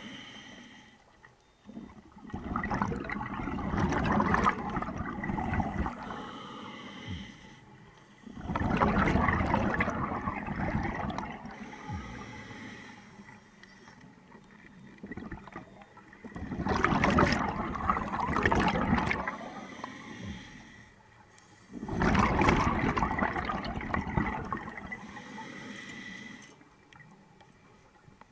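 Scuba diver breathing through a regulator underwater: four long exhalations, each a rush of bubbles lasting three to four seconds, with quieter spells between them.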